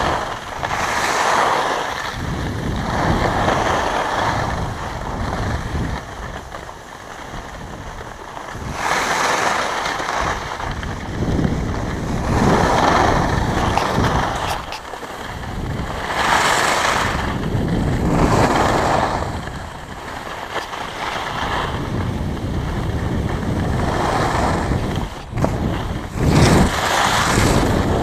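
Skis hissing and scraping over packed snow during a downhill run, swelling with each turn every few seconds, with wind rushing over the action camera's microphone.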